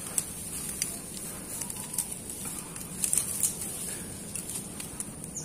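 Quiet outdoor ambience: a steady high-pitched drone, with a few light clicks and rustles scattered through it.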